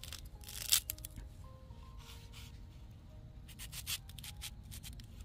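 A steel cleaver blade cutting and scraping along a green plant stalk in a few short, uneven strokes, the loudest about a second in. Soft background music plays under it.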